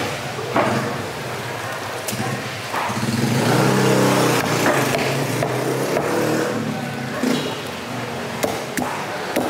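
A motor vehicle engine passing close by, growing louder to a peak about four seconds in and then fading. A few sharp knocks of the curved knife on the wooden chopping block come through over it.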